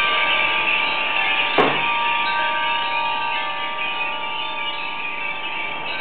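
A large array of Japanese wind chimes (furin) ringing continuously in a strong wind, many overlapping bell tones at once. There is a single sharp knock about a second and a half in.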